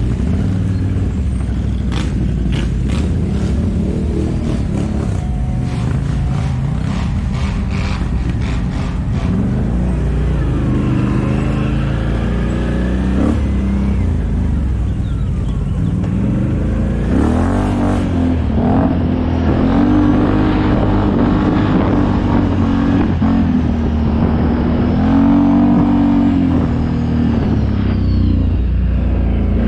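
ATV engine running under load on a dirt trail, its pitch rising and falling as the throttle is worked, with the revs changing most in the second half. A run of clicks and knocks sounds over the first nine seconds or so.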